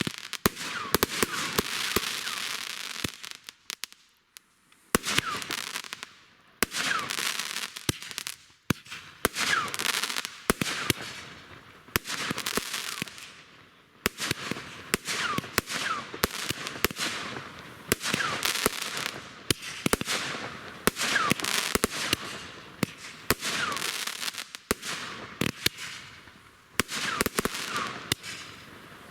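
Fireworks going off in quick succession: sharp bangs, each followed by a spray of crackling, with short falling whistles among them and a few brief lulls.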